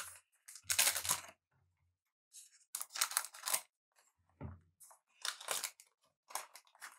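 A foil trading-card pack being torn open and its cards handled: a series of short tearing and rustling noises, the longest about a second in and about three seconds in.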